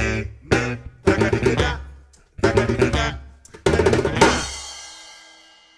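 Djembe and electric bass playing a closing run of sharp, accented hits together. The last hit, about four seconds in, rings out and fades away.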